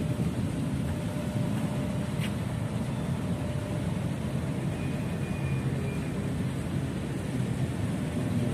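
Steady road traffic noise: a low, continuous rumble of cars and heavy trucks passing on a busy road.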